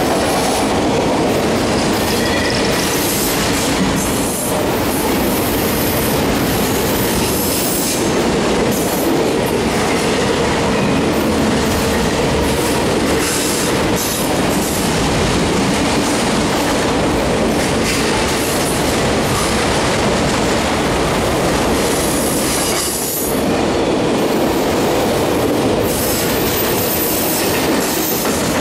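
Auto rack freight cars rolling past close by: a loud, steady rumble of steel wheels on rail.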